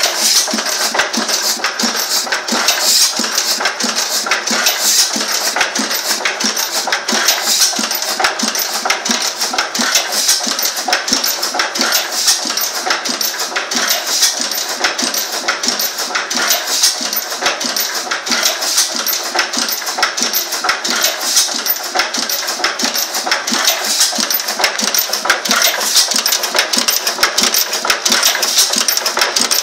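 Old Benz & Co. stationary engine running, its big flywheels turning, with a steady rapid mechanical clatter from the valve gear and firing.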